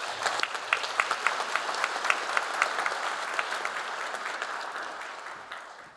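Audience applauding, dense clapping that dies away over the last second or so.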